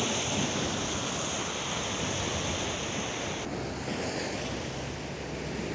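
Sea surf washing and breaking against shoreline rocks, a steady rushing noise; a high hiss in it drops away about three and a half seconds in.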